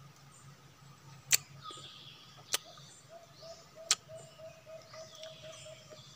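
Three sharp crunches, a little over a second apart, as teeth bite into a katmon fruit (Dillenia philippinensis).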